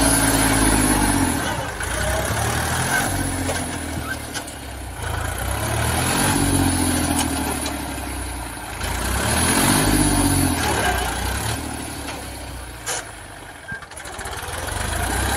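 Massey Ferguson 246 Dynatrack tractor's diesel engine running under load while it pulls a cultivator through the soil. The engine note swells and dips in pitch about every three to four seconds, easing off briefly near the end.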